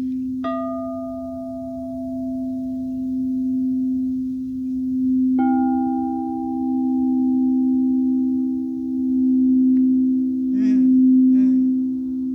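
Singing bowls: one bowl holds a steady low tone that swells and fades in loudness, while two other bowls are struck, one just after the start and one about five seconds in, each ringing on and slowly dying away.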